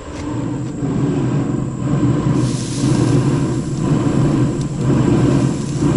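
Green Mountain Grills Daniel Boone pellet grill running hot at 500 °F with its lid open: a steady low rumble of its fan and fire.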